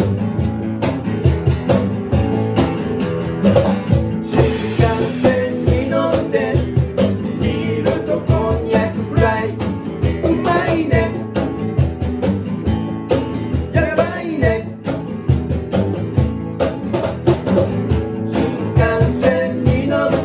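A band song played on two guitars with a cajón keeping a steady beat, and a voice singing at several points.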